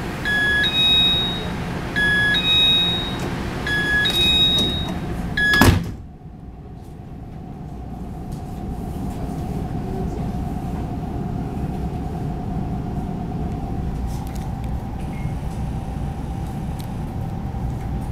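Taiwan Railways EMU600 door-closing warning chime, a two-note rising chime sounding four times, then the doors shut with a loud knock. The electric train's steady motor hum then builds as it pulls away.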